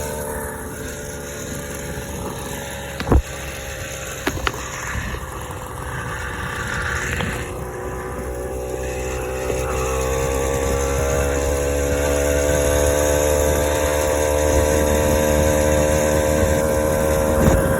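Small gas engine of a motorized Schwinn bicycle running under way, its pitch and loudness climbing steadily from about ten seconds in as the bike picks up speed. A sharp knock about three seconds in and a couple of lighter clicks just after.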